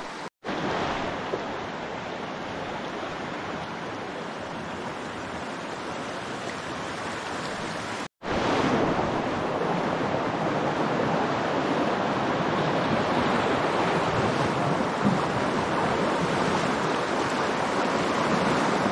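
Fast, high creek current rushing steadily: pushy water. The sound drops out briefly twice, about half a second and about eight seconds in, and comes back a little louder after the second break.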